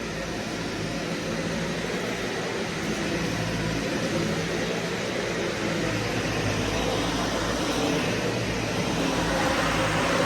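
Vacuum cleaner running steadily, its motor hum under a broad rush of air, growing slightly louder over the seconds.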